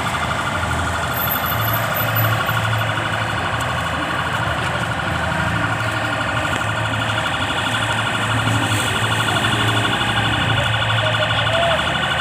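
Electronic vehicle siren sounding continuously with a fast warble.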